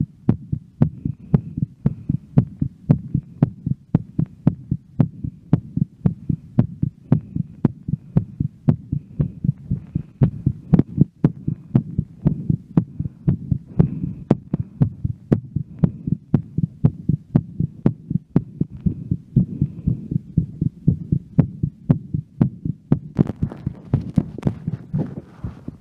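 A woman's heartbeat, fast and regular after a workout: a steady train of deep, thudding beats. Breathing noise comes in near the end.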